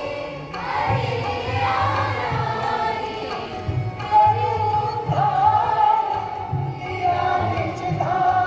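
Music: a group of voices singing a melodic song over a steady drum beat.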